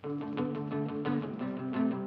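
Surf-rock style band starting to play twist music on electric guitars, kicking in suddenly out of near silence.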